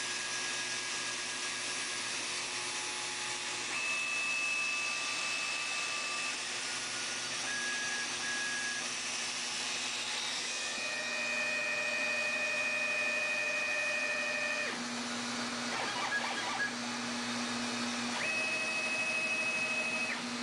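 Homemade CNC router at work: the router spindle motor runs with a steady rushing noise while the stepper motors driving the lead screws whine in steady tones that jump to a new pitch every few seconds as each move changes.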